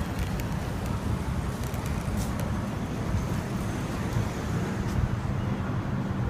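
Steady low rumble of motor-vehicle noise, with a car engine's idling hum coming in about four and a half seconds in.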